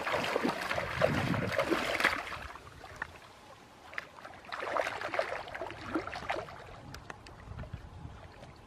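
Water splashing and sloshing in irregular spells, as from hands or bodies moving through shallow water, with small clicks mixed in; louder in the first couple of seconds, again a little after the middle, then fading.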